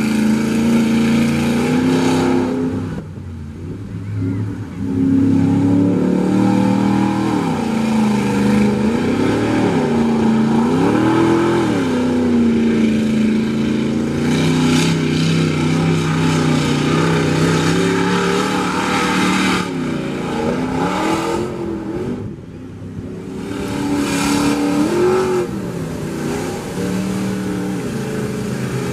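Mud-racing pickup truck's engine revving hard as it drives through mud, its pitch sweeping up and down with the throttle. It drops off briefly twice, about three seconds in and again past twenty seconds.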